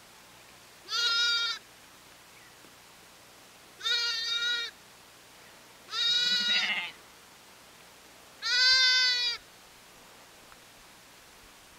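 Sheep bleating four times, short high-pitched calls a couple of seconds apart.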